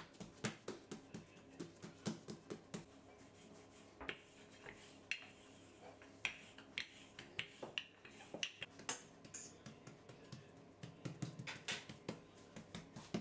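Faint, irregular taps and clicks, several a second, of hands pressing and patting bread dough and a wooden rolling pin working it flat on a countertop.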